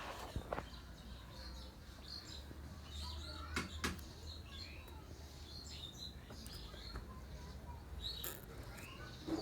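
Small birds chirping repeatedly in short, high notes, with a few sharp clicks or flaps among them.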